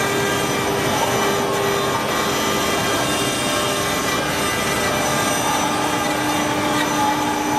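CNC router spindle running with its cutter grinding into a rotating marble column under a water coolant spray: a steady grinding and hiss with a few constant whining tones.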